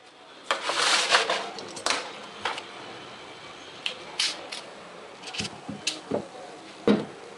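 Hand-work noises: a scraping rustle of a vinyl wrap sheet and its paper backing being worked with a utility knife, followed by scattered sharp clicks and a few dull knocks as the knife, sheet and a spray can are handled and set down on a wooden desk.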